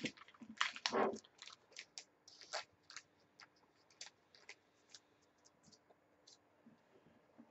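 Faint clicks and scrapes of trading cards being handled, shuffled and set down on a wooden desk. The clicks come thickly at first and thin out to the odd tick after about five seconds.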